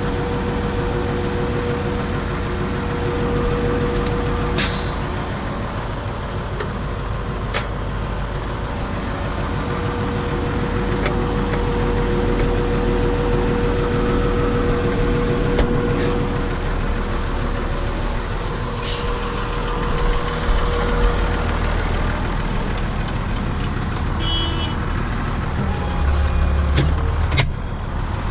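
Renault farm tractor's diesel engine running steadily, with a steady whine that comes and goes and a few sharp clicks and knocks. The low drone grows heavier briefly near the end.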